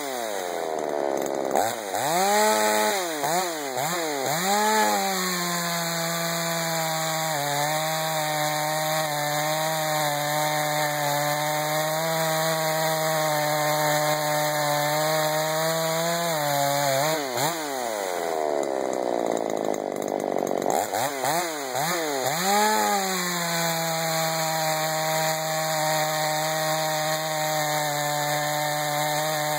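Ported 38cc Earthquake two-stroke chainsaw cutting through red oak. Its pitch swings up and down a few times in the first five seconds, then holds steady under load in the cut. Around two-thirds of the way through it swings sharply again before settling back to a steady cutting pitch.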